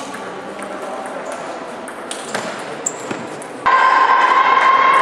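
Table tennis ball clicking sharply off bats and table in a doubles rally. Near the end a louder steady noise with a sustained tone cuts in abruptly.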